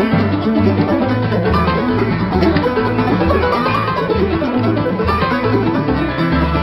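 Background music: an upbeat plucked-string tune in a bluegrass style, with banjo and guitar over a steady stepping bass line.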